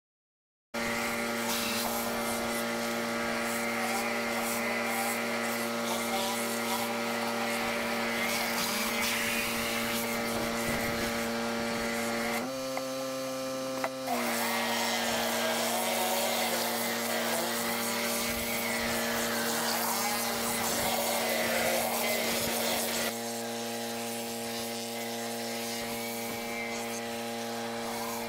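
Pressure washer running steadily: a constant machine hum with a hiss of spraying water over it, starting abruptly just under a second in. About halfway the hum briefly steps up in pitch, then settles back, and the sound drops a little in level a few seconds before the end.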